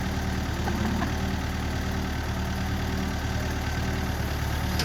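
Backhoe engine idling steadily, with an even, unchanging note.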